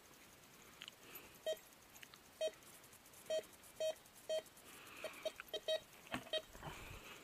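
Handheld metal detector giving short, identical beeps, about ten in all, spaced irregularly and coming faster in a cluster around the five-second mark. These are target signals as the search coil sweeps over metal in the ground.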